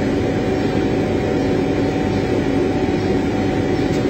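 Wood laser cutting machine and its equipment running: loud, steady machine noise with one constant tone through it.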